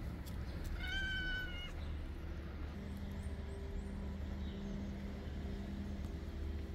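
Hungry stray cat giving one drawn-out meow, about a second long, a little under a second in. A low steady hum follows.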